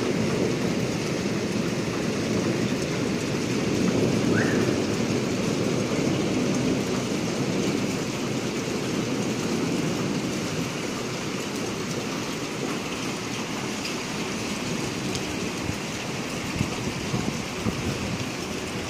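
Steady rain falling on wet pavement and flooded streets, a continuous even hiss of water.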